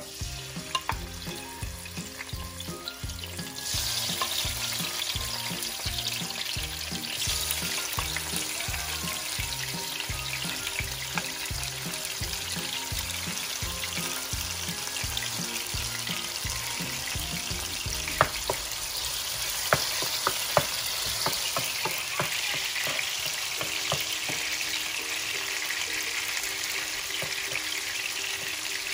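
Diced tomatoes frying in hot oil in an electric skillet: a steady sizzle that grows louder about four seconds in. A few knocks of a wooden spoon against the pan come in the second half as the tomatoes are stirred.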